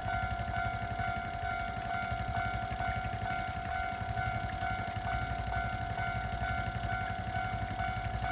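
Japanese level-crossing warning bell ringing its steady repeating tone, about two strikes a second, over a steady low rumble.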